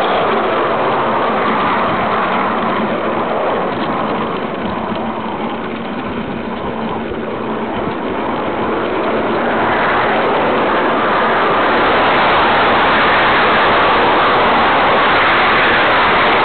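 Aster 45 mm gauge live-steam JNR 9600 model locomotive running under steam, heard close up from on board: a steady hiss of steam and running noise, easing slightly around the middle and louder in the second half.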